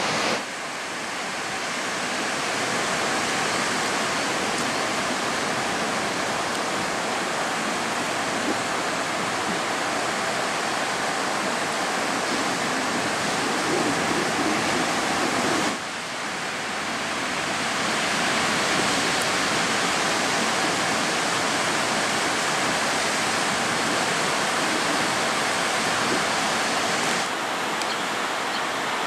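Steady rushing noise of ocean surf breaking on the shore, with sudden small drops in level a moment in, about halfway through and near the end.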